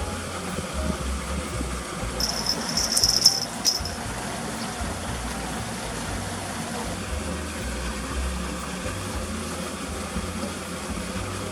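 Outdoor pond-side ambience with an uneven low rumble. About two seconds in, a high-pitched buzzy insect call lasts about a second and a half.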